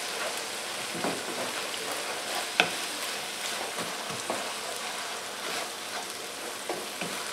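Ground chicken and vegetables sizzling in a skillet with soy sauce and hoisin sauce while being stirred with a wooden spoon, the spoon scraping and knocking on the pan now and then, one sharper knock about two and a half seconds in.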